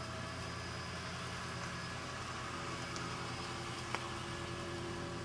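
A steady low mechanical hum with a light hiss, with one faint click about four seconds in.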